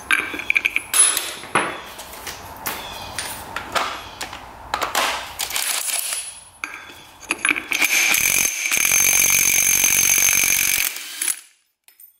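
Metal engine parts and hand tools clinking and clicking as a two-stroke dirt bike engine is taken apart. About eight seconds in, a steady mechanical whir runs for about three seconds.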